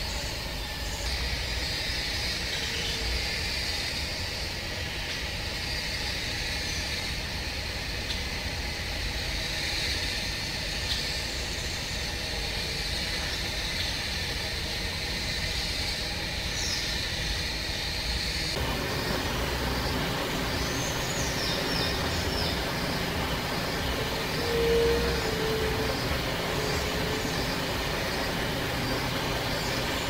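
Steady outdoor background: a continuous low rumble under a steady high buzz, with a few faint short chirps. The background changes abruptly about two-thirds of the way through.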